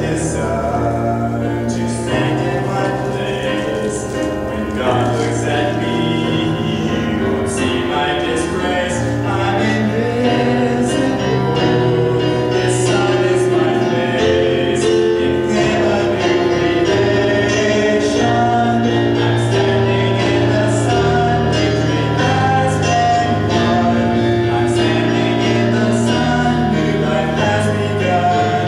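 A man singing a Christian song into a handheld microphone over instrumental accompaniment with a bass line that moves every second or two.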